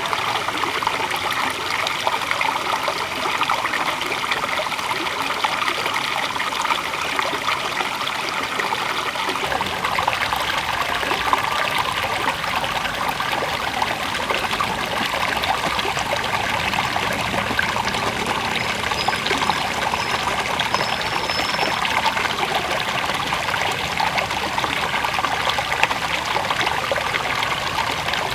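River water flowing with a steady trickling, babbling rush. It turns fuller and deeper about a third of the way in.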